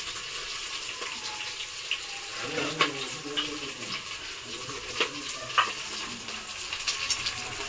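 Oil sizzling in a pan as food fries, with a few sharp clinks of a spoon stirring against the pan.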